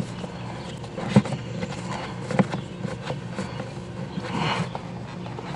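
Scattered clicks and knocks of a charcoal cabin air filter's frame and its plastic housing as the filter is pushed and worked down into place, with a short rustling scrape about four seconds in.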